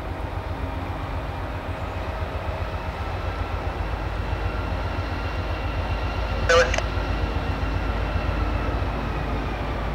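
Diesel-electric freight locomotives, an SD50-2 among them, approaching slowly with a steady low rumble. A brief sharp noise sounds about six and a half seconds in.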